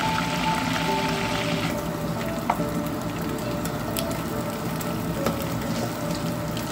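Salmon head pieces deep-frying in a pot of hot oil: a dense, crackling sizzle that drops sharply to a fainter sizzle a little under two seconds in, with a sharp click about two and a half seconds in. Soft background music with held notes plays throughout.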